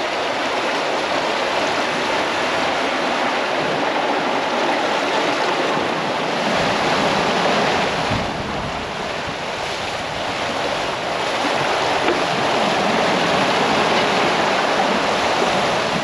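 Water rushing and churning in the wake of a Leopard 45 sailing catamaran under sail, a steady hiss with no engine. Wind rumbles on the microphone, heavier from about the middle.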